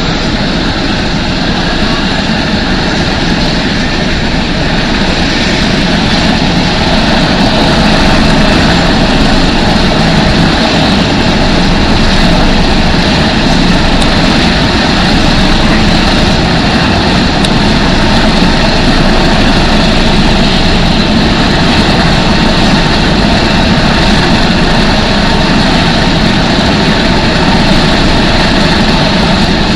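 Turboprop engines of Embraer T-27 Tucano trainers running, a loud steady propeller drone that grows somewhat louder over the first several seconds.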